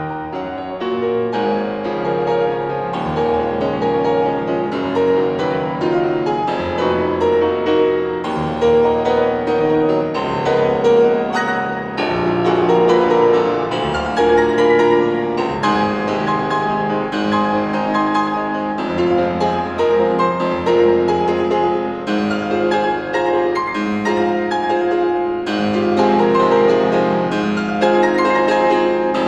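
Steinway & Sons grand piano played solo in a busy, unbroken passage of many notes.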